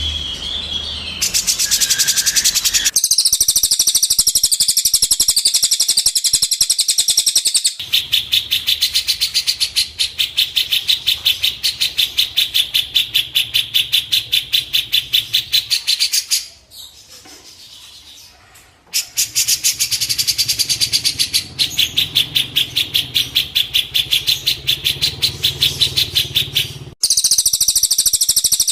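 A songbird's rapid chattering trill: many high, evenly repeated notes a second in long runs, with a short break a little past the middle. It is a masteran recording of the kind played to train caged songbirds.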